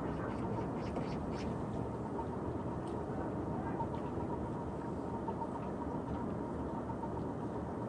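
Steady low rumble of seaside outdoor ambience, with a faint, even whine above it and a few faint ticks in the first second or two.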